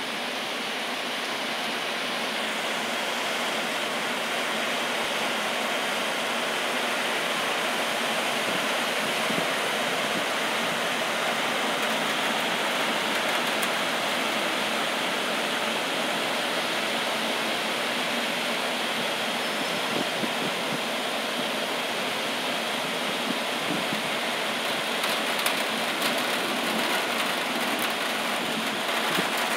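Heavy rain pouring down steadily, a dense even hiss, with a few faint ticks near the end.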